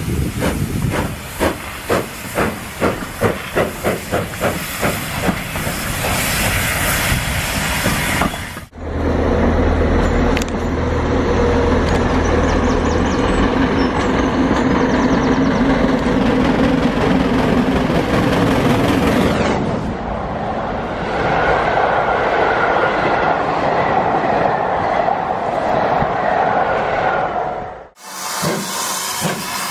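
Steam locomotive exhaust beats, sharp and regular at about two to three a second, from a GWR King-class 4-6-0 working hard with steam hissing. About nine seconds in the sound cuts abruptly to a second GWR steam locomotive, a Castle-class 4-6-0, working hard, its exhaust and wheel noise blending into a continuous rush.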